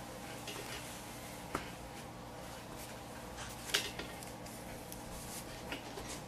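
Clothes iron sliding along a folded fabric hem on an ironing board: a faint steady rustle with a few light clicks.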